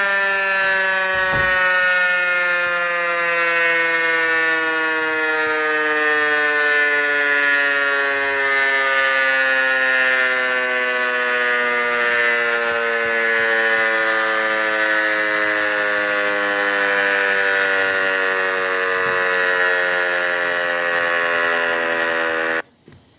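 Outdoor tornado warning siren sounding one long tone that slowly falls in pitch, then cuts off abruptly near the end.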